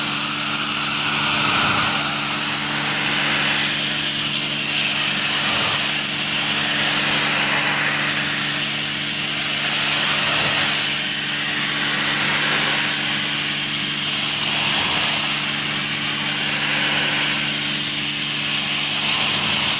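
High-pressure washer running, a steady machine hum under the hiss of its water jet blasting dirt and old paint off corrugated sheet-metal cladding. The hiss swells and fades every couple of seconds as the jet sweeps across the panels.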